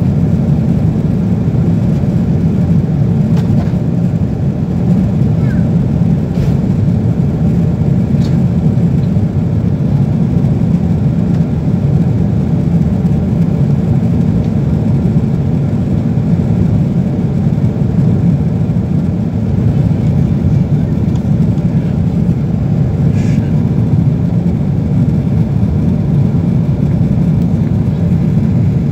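Steady low rumble of an airliner cabin in flight: jet engine and airflow noise heard through the cabin.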